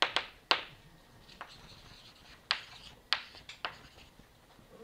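Chalk writing on a blackboard: several sharp, irregularly spaced taps of the chalk hitting the board, with short scratchy strokes between them.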